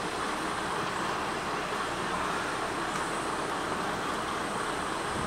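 Kiha 200 diesel railcar running along the line: a steady rumble of wheels on rail and engine, with no distinct beat of rail joints.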